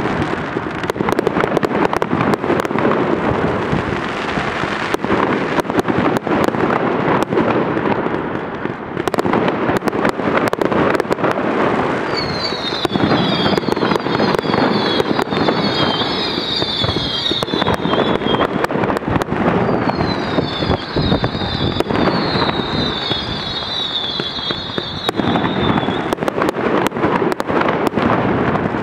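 Large fireworks display: a dense, continuous barrage of shell bursts and crackling bangs. Twice, from about twelve seconds in and again from about twenty seconds in, a run of quick falling high whistles rises above the bangs for about six seconds.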